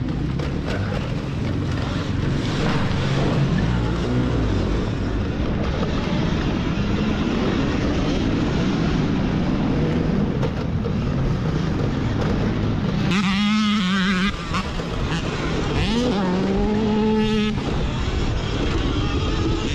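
Dirt bikes racing off-road: a constant rushing noise with engines revving and easing off. About two-thirds of the way in, an engine nearby rises and falls loudly twice.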